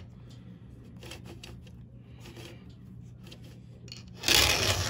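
Round file rasping across a chainsaw chain's cutter in one light stroke near the end, the file cutting smoothly without grabbing. Before it come faint small scrapes and ticks of file and chain over a low steady hum.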